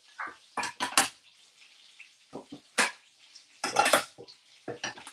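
Metal pans and utensils clattering on a kitchen hob as they are handled: several sharp knocks and scrapes, about a second in, near three seconds and around four seconds.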